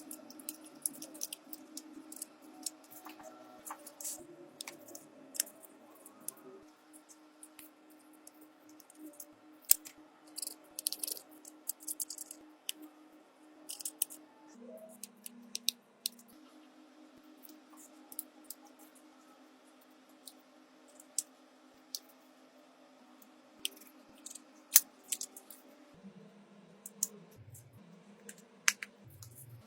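Many small sharp clicks and snips of hand tools working on a smartphone during a back-glass repair, over a low steady hum that shifts pitch a few times.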